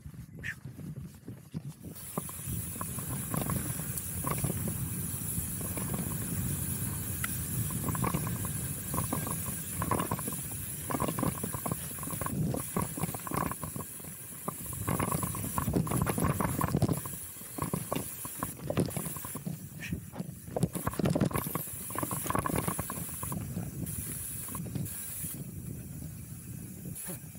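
Chromag Rootdown steel hardtail mountain bike riding down a dirt singletrack: tyre noise on the dirt with the chain and frame rattling and knocking over bumps, under a steady rush of air on the microphone.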